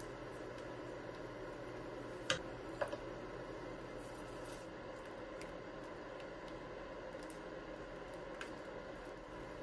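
Silicone spatula stirring and scraping thick pudding around a nonstick pan, a soft, wet squishing. Two sharp clicks, half a second apart, come a little over two seconds in.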